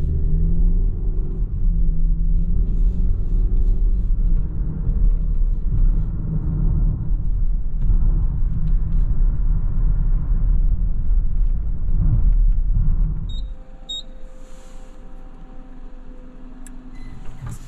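Car driving, with a steady low engine and road rumble. About 13 seconds in the rumble drops away, leaving a few quieter steady tones and a couple of short beeps.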